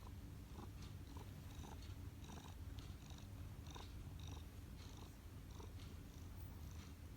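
Domestic cat purring steadily, a low continuous rumble, with faint short ticks about twice a second over it.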